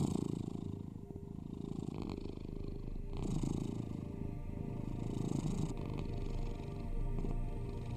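Domestic cat purring continuously, the purr swelling and easing with each breath every couple of seconds, over a low steady drone.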